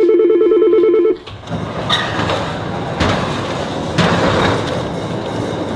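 A warbling electronic ringer sounds for about the first second and cuts off. Then a corrugated sheet-metal sliding gate is rolled open on its wheel, rattling, with knocks about two, three and four seconds in.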